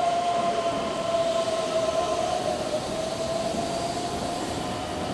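Keihan 7000 series electric train pulling into a station platform at low speed and braking to a stop. A steady whine falls slightly in pitch over running noise.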